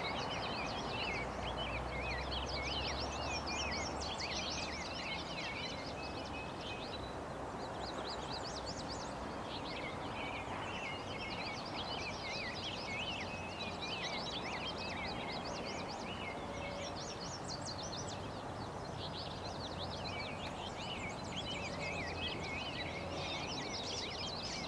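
Several songbirds singing at once, rapid twittering phrases coming and going in clusters, over a steady outdoor background hiss.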